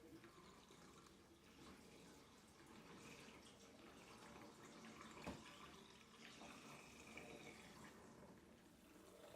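Faint water dripping and trickling in a kitchen sink as dish-washing winds down, with a single soft knock of a dish about five seconds in.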